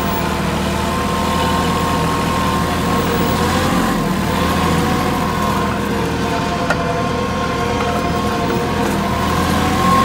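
Farm tractor's diesel engine running steadily under load, heard from the driver's seat while driving over ploughed ground, with one brief click about two-thirds through.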